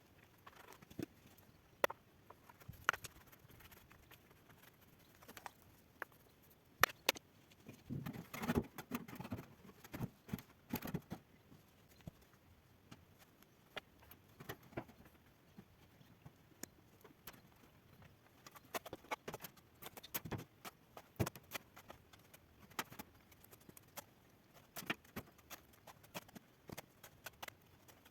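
Scattered, irregular light knocks and clicks, with a busier stretch of knocking and rustling about a third of the way in.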